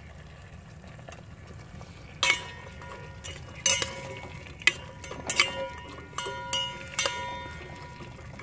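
Metal spoon stirring string beans in a stainless steel pot of simmering broth, clinking against the pot several times from about two seconds in, each strike leaving a short metallic ring. A low steady simmer runs underneath.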